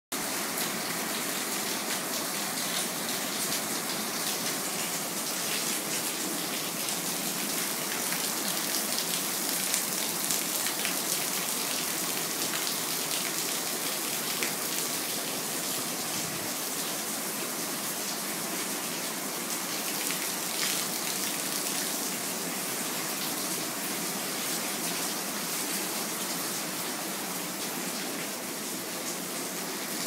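Rain falling steadily, a continuous even hiss flecked with the small ticks of individual drops.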